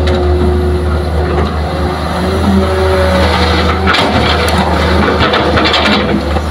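Heavy diesel earthmoving machinery running steadily, its engine note shifting in pitch, with short bursts of rattling noise about four and six seconds in.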